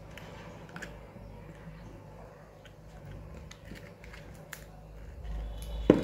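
Small plastic clicks and handling noises as a wire-harness connector is pushed into a refrigerator's control-panel circuit board, with one sharper knock just before the end.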